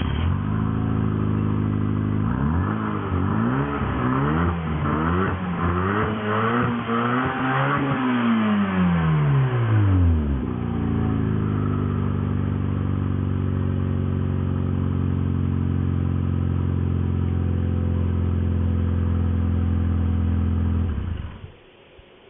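Daihatsu Copen L880K's 659 cc turbocharged four-cylinder engine, heard through a Fujitsubo Power Getter exhaust. It idles, is blipped several times with the revs rising and falling, and gives one longer rev that falls away. It then settles to a steady idle and cuts off about a second before the end.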